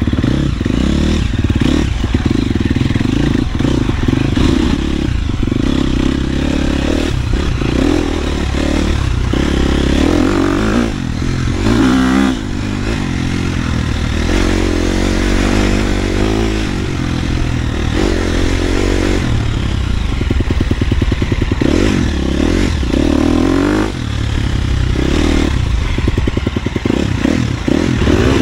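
KTM 250 SXF dirt bike's single-cylinder four-stroke engine running under load as it is ridden off-road. Its pitch rises and falls with the throttle, and it drops off briefly a few times.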